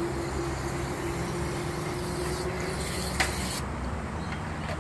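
Steady hiss of garden-hose misting nozzles spraying, over a low steady hum, with a single click about three seconds in; the highest part of the hiss drops away shortly after.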